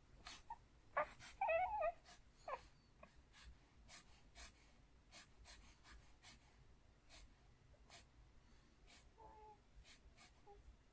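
A sleeping 4-month-old baby lets out a short wavering whimper about a second in, then a faint brief one near the end, with scattered small clicks in between.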